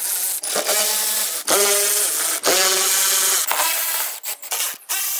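Ryobi cordless electric ratchet running in short bursts of about a second each, its motor whining, as it backs out T15 Torx screws from an underbody panel. Near the end it is blipped in quick stop-start taps.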